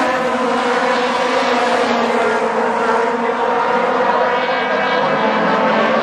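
A pack of Aussie Racers race cars, small racers powered by 750 cc Yamaha, Honda and Kawasaki motorcycle engines, racing past with several engine notes overlapping in a steady, loud drone.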